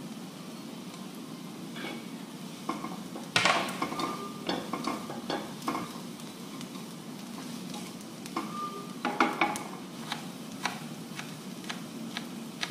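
Onion and julienned carrot frying in a large nonstick pan with a steady low sizzle, while a slotted plastic spatula stirs and scrapes them, clicking against the pan. The loudest scrapes come about three and a half seconds in and again around nine seconds.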